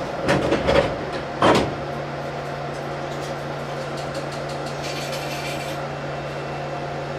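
Iyo Railway tram running, heard from inside at the front of the car: a few loud knocks in the first two seconds, then a steady low hum over the even running noise.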